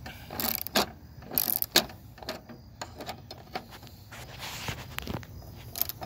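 Hand ratchet clicking in short, irregular strokes as a bolt is turned into the striker reinforcement plate on a door pillar, with metal scraping as the bolt threads in.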